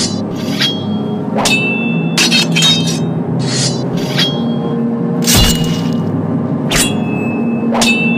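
A rapid series of about ten sharp metallic clashes, each ringing briefly like sword blades striking, timed to a stick fight, with a heavier hit with a thud about five seconds in. Background music runs underneath.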